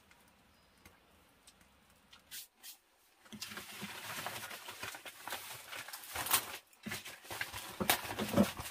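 Broad green leaf being handled and folded, rustling and crackling, starting about three seconds in, with sharper crackles near the end. Before that only faint scattered ticks.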